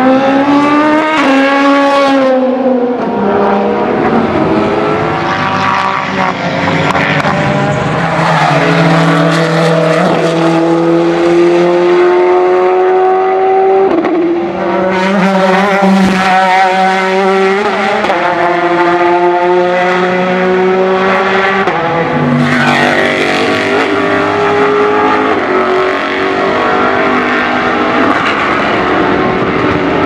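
Race car engines at full throttle, each pitch climbing under acceleration and dropping sharply at every upshift, as several cars pass one after another.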